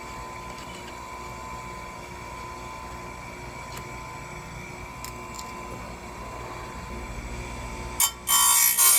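Electric chainsaw chain sharpener's grinding wheel spinning with a steady whine. About eight seconds in, the wheel is brought down onto a cutter tooth of the saw chain and grinds it loudly with a harsh, high hiss.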